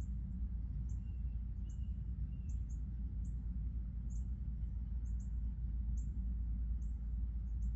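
Birds giving short, very high, thin chirps about once or twice a second, each dropping slightly in pitch, over a steady low rumble.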